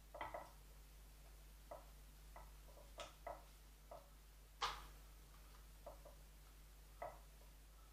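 Small pruning shears snipping twigs and leaves on a Ficus retusa bonsai: soft, irregular clicks, with one sharper snip a little past halfway.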